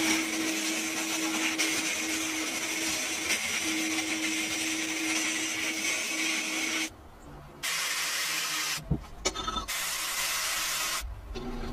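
Sandblasting gun in a blast cabinet spraying abrasive grit onto rusted cast metal: a steady hiss of compressed air and grit. It drops out briefly about seven seconds in, then comes back in short stretches with abrupt stops.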